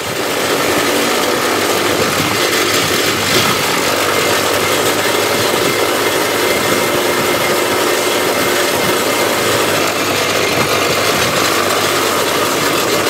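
Excavator-mounted vibratory pile driver running steadily as it drives a 25-foot vinyl sheet pile down for a bulkhead, a loud continuous mechanical buzz with the excavator's engine beneath it.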